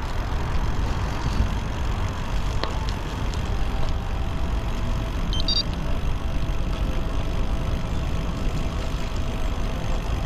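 Wind rumbling on the camera microphone and tyre noise as the e-bike is ridden along a gravel and tarmac path: a steady, low, noisy rush. A short high beep sounds about five and a half seconds in.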